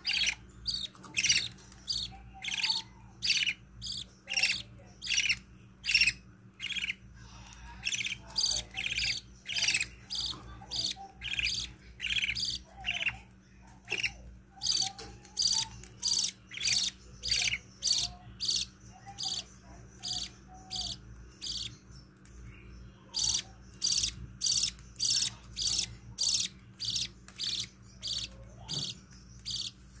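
Budgerigar chicks cheeping in a steady rhythm, about two loud, high chirps a second, with a brief pause about three-quarters of the way through. These are the begging calls of chicks being fed by their mother.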